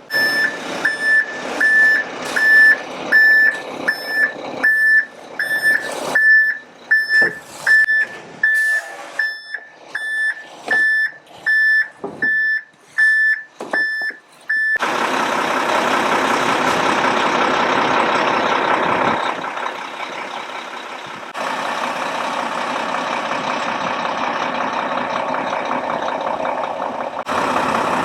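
A truck's reversing alarm beeping steadily, about one and a half beeps a second, over the rumble of its diesel engine as it backs up. About halfway through, the beeping cuts off suddenly and only a steady running heavy engine is heard.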